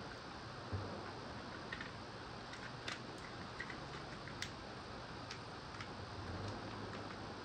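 Small, irregular clicks and ticks from an iPad's glass and aluminium frame being handled and pressed along the edge by gloved fingers, over a steady faint hiss and low hum.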